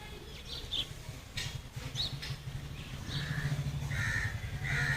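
Crows cawing, a few harsh short caws in the second half, with faint high bird chirps earlier and a low steady rumble underneath.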